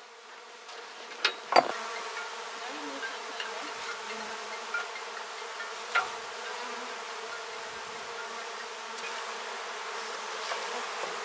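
A honeybee swarm buzzing in the air around the beekeepers: a dense, steady hum of many bees. There are a few sharp knocks, the loudest about a second and a half in and another about six seconds in.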